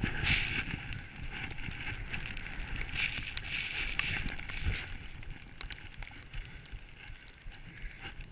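Skis hissing through deep powder snow, swelling into loud rushes near the start and again about three seconds in, over a steady low rumble of wind buffeting the microphone.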